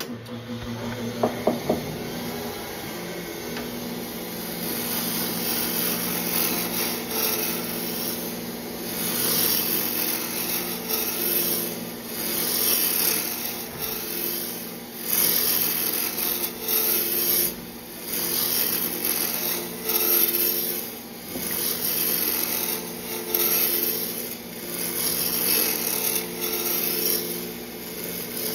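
Wood lathe running with a turning gouge cutting a spinning wooden mallet blank, roughing the handle down to diameter. The cutting noise swells and drops with each pass, every second or two, over the lathe's steady hum.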